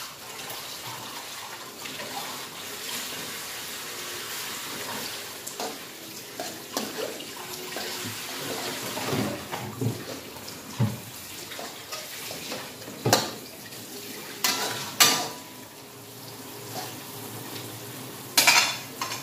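Noodles simmering in a shallow layer of water in a wok, giving a steady bubbling hiss. A metal spatula scrapes and knocks against the wok several times in the second half; these knocks are the loudest sounds.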